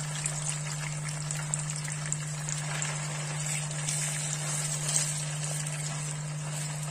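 Marinated pork strips sizzling and crackling steadily in a deep layer of hot oil in a frying pan, over a steady low hum. A slotted spatula stirs the meat in the second half, with one sharper click about five seconds in.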